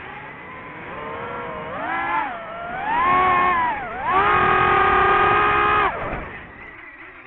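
DJI FPV drone's motors and cheap aftermarket propellers whining, the pitch rising and falling with the throttle, then held high and loud for about two seconds before dropping off sharply near the end.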